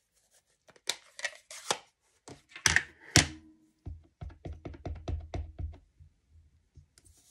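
Clatter and knocks of a plastic ink pad case being handled and opened, then a quick run of about ten light taps as a clear acrylic stamp block is tapped onto the ink pad to ink the stamp.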